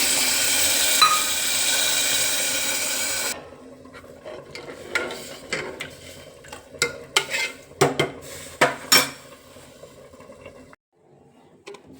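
Loud sizzling of food in a hot pan for about three seconds, cut off abruptly; then a metal spoon stirring in a cooking pot, with scattered clinks and knocks against its sides, the loudest a few together about eight to nine seconds in.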